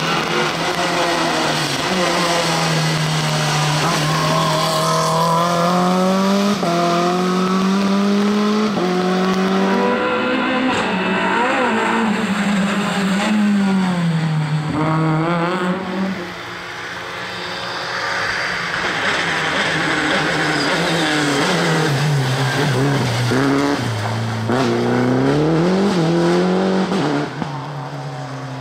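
Rally car engines revving hard as the cars pass one after another. The pitch climbs, then falls back at each gear change and lift-off, and the engine notes swell and fade with each car.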